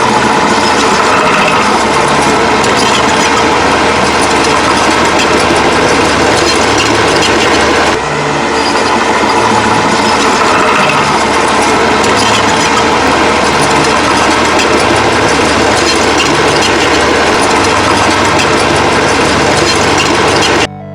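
Bulldozer engine and clattering tracks, a loud steady mechanical noise that starts over about eight seconds in and stops just before the end, mixed with background music that has a stepping bass line.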